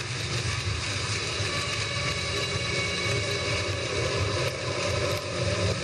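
Background music with a steady low drone.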